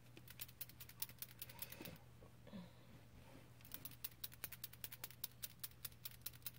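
Faint, rapid light clicking, several clicks a second, in two runs with a pause of about two seconds in the middle, over a low steady hum.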